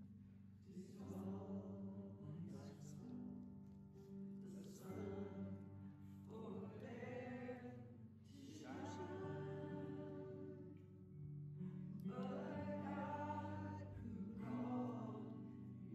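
A worship song playing quietly: voices singing a slow melody in phrases over sustained low chords.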